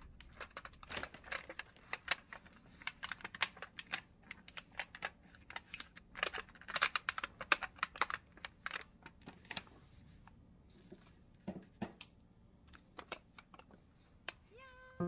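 A quick, irregular run of light clicks and taps, dense for about ten seconds and then thinning out to a few scattered ones.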